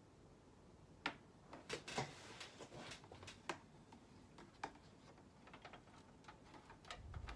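Faint, scattered plastic clicks and taps from SATA data cables being handled, plugged into a motherboard and fed through a PC case, with a soft low bump near the end.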